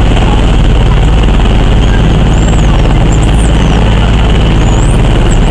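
Boat engine running steadily under way, with wind rumbling heavily on the microphone as the boat moves across open water.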